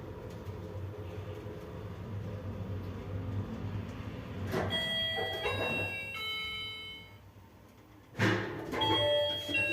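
ShLZ ecoMAKS lift car travelling with a steady low hum, then an electronic chime of several held notes about four and a half seconds in. About eight seconds in comes a sudden loud clatter, followed by more chime notes.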